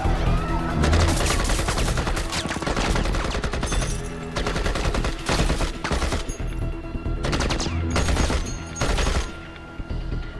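Automatic gunfire in bursts of rapid shots: one long burst starting about a second in, then several shorter bursts in the second half.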